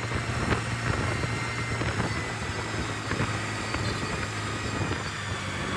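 A keke napep auto-rickshaw's small engine running steadily as the tricycle drives along, heard from on board: a steady low drone with scattered short clicks.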